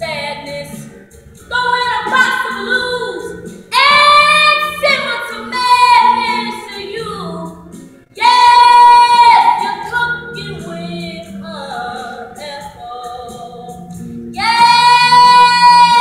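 A woman's voice singing, belting several long, loud, high held notes, the strongest starting about four, eight and fifteen seconds in.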